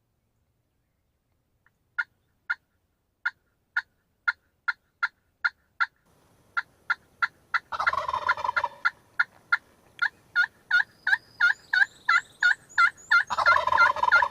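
Wild turkey sounds: a run of short, sharp yelping notes starting about two seconds in, about two a second and then quickening, with two longer gobbles breaking in, one about eight seconds in and one near the end.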